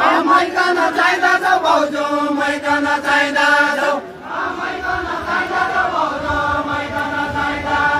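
Deuda folk singing: voices chanting a song in long, drawn-out phrases, with a woman singing into a microphone. There is a short break about halfway, then a second held phrase.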